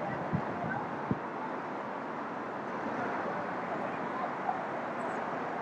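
Steady outdoor background noise, with one short knock about a second in.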